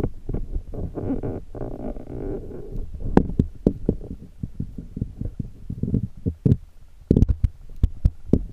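Muffled underwater sound picked up through a submerged camera's waterproof housing: a steady low rumble of moving water with many scattered sharp clicks and knocks, and a brief denser muffled rushing about a second in.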